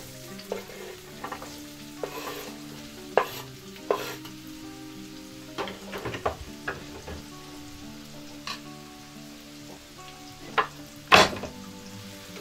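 Diced onion sizzling in hot oil in a nonstick frying pan as it is tipped in and stirred. A knife and spatula scrape and tap against the pan in scattered sharp clicks, the loudest near the end.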